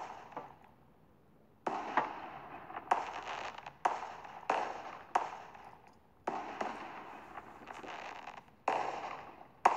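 Fireworks bursting: about ten sharp bangs, each trailing off in a fading crackle. One comes at the very start, then after a pause of more than a second they follow one another steadily to the end.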